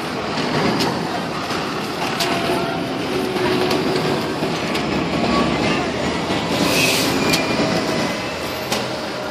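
FDNY aerial ladder truck's diesel engine running as the truck moves off through street traffic, with clicking rattles and a short hiss about seven seconds in.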